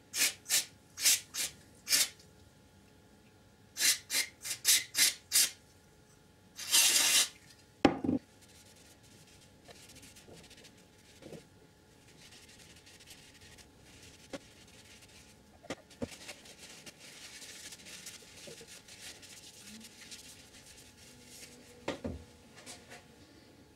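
A steel shock-linkage sleeve being rubbed clean by hand in two runs of quick scrubbing strokes, about two to three a second, then one longer stroke and a knock. Fainter rubbing and a few light knocks follow.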